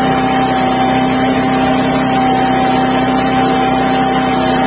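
Hydraulic helical-pier installation rig running steadily as its torque motor screws a galvanized helical pier lead section into the ground: an even engine-and-pump hum with a couple of held whining tones.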